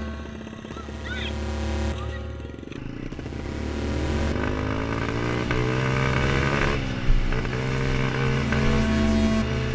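125cc pit bike engine accelerating and shifting, its pitch rising and dropping several times as it pulls through the gears. There is a sharp knock about seven seconds in.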